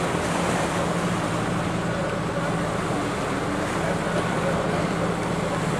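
Steady low machine drone under a constant wash of outdoor noise, with no changes or sudden sounds.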